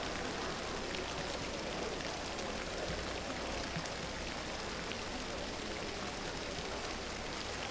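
Steady, even rush of water in an indoor diving pool hall, such as the pool's surface sprays running, with no distinct splash or other event.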